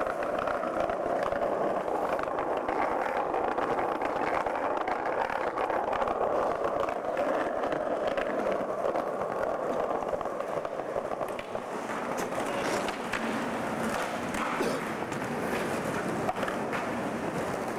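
Skateboard wheels rolling steadily over paved street, a continuous rolling noise, with a few sharp clicks in the second half.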